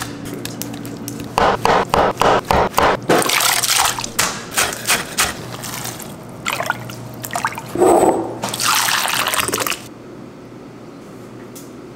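Knife chopping on a wooden cutting board, about nine quick, even strokes. Later comes a longer, louder splash of liquid being poured and stirred in a pot.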